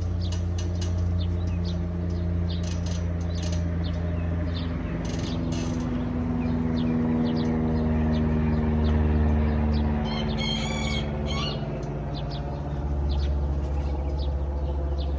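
Morning birds chirping: many short chirps, and one longer wavering call about ten seconds in. Underneath runs a steady low hum with droning tones that slowly shift in pitch.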